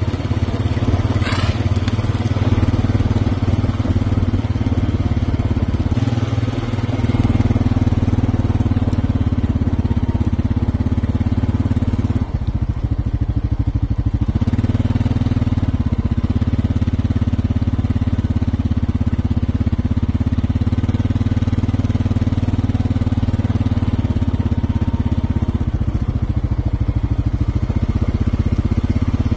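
A motor vehicle's engine running steadily at low speed, a continuous low drone.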